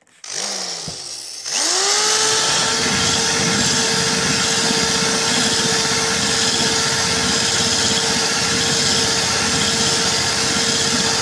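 A hand spray bottle hisses water onto the glass, then about a second and a half in an electric drill spins up and runs at a steady pitch, its diamond-coated tube bit grinding into the wet glass.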